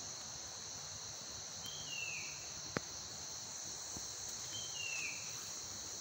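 Steady high-pitched chorus of insects. A short falling call sounds twice, about three seconds apart, and a single sharp click comes a little before the middle.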